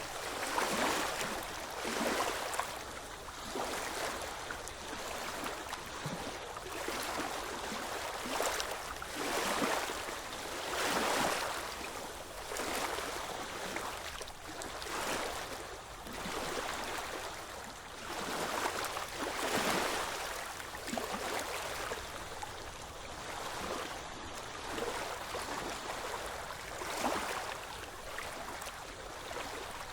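Ocean waves washing and splashing on a shore, with a fresh splash every second or two over a continuous hiss of moving water.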